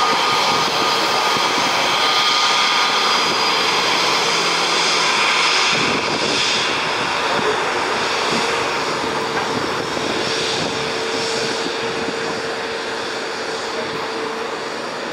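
Airbus A320neo turbofan engines running at low taxi thrust as the jet rolls slowly along the runway: a steady rushing noise with several high whining tones held above it.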